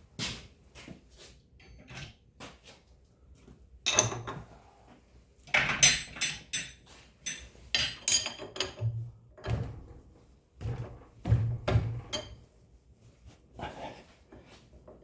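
Metal hand tools being picked up, rummaged through and set down: a run of irregular clinks and knocks, some ringing briefly, with the loudest clatter around the middle.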